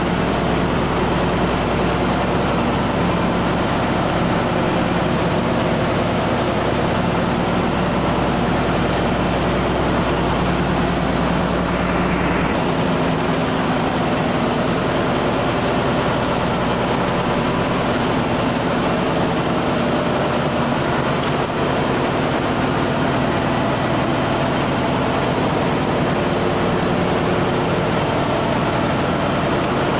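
Steady, loud drone of a ship's engine-room machinery. About halfway through, the deepest part of the hum drops away and the tone of the running machinery shifts.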